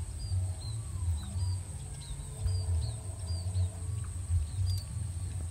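Outdoor field ambience: a loud, uneven low rumble throughout, with a bird's short high chirps repeating about twice a second and a steady thin high insect whine.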